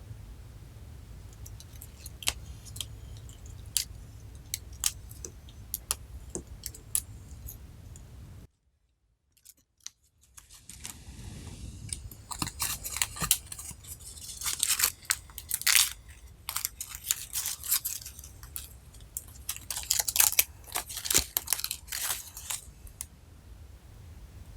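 Slime being worked by hand: scattered sticky clicks and pops at first. After a short cut to silence, a dense run of crunchy crackling follows.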